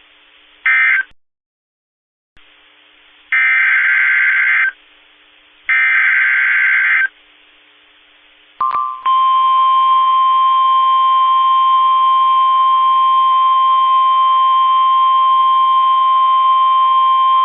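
Emergency Alert System / NOAA Weather Radio SAME data bursts: a short burst of warbling digital tones, then two longer bursts about a second apart. After a click, the steady Warning Alarm Tone sounds for about nine seconds, signalling that a new warning follows.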